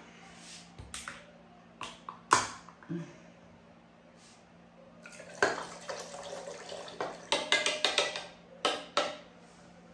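Kitchen utensils and dishes clinking: a few separate knocks early on, then a quicker run of clinks from about halfway through.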